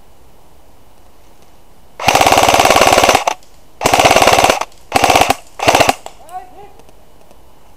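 Airsoft electric gun firing on full auto, close by: four bursts of rapid clicking shots, the first a little over a second long and the rest shorter.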